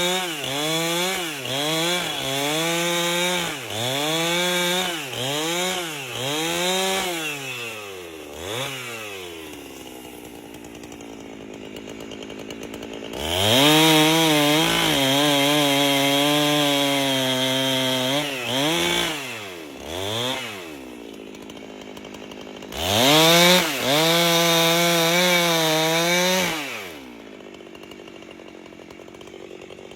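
Two-stroke chainsaw with a 30-inch bar ripping an albasia log lengthwise. It is revved in quick pulses about once a second, drops to idle, then is held at full throttle for about five seconds, blipped a few times, and held high again for about four seconds before falling back to idle near the end.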